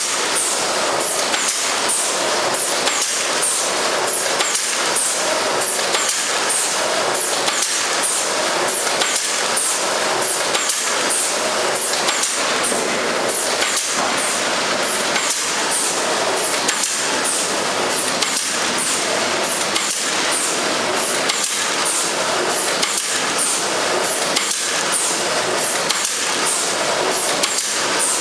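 Horizontal pouch packing machine running: a steady mechanical whir with rhythmic clacking from its mechanism and sharp high ticks repeating at an even pace.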